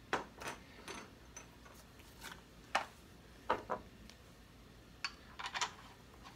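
Scattered light clicks and taps of small gear being handled and set down, about ten at irregular intervals, some in quick pairs.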